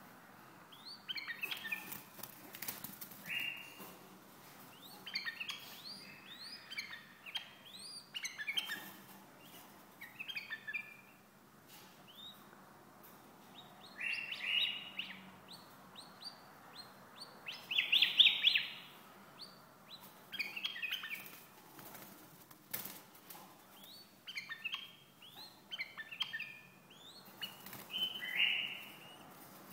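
White-eared bulbul (Hasawi bulbul) singing in repeated bursts of short chirping phrases, loudest about 14 and 18 seconds in, with its wings fluttering now and then.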